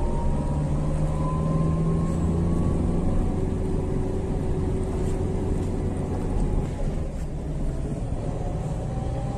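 Engine and road noise of a moving vehicle heard from inside its cab: a steady low rumble, with the engine note slowly rising in pitch twice.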